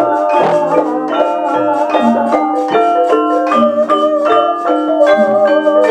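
Javanese gamelan ensemble playing: quick, overlapping strikes on bronze keyed metallophones ringing over lower sustained notes, with a wavering held tone above them.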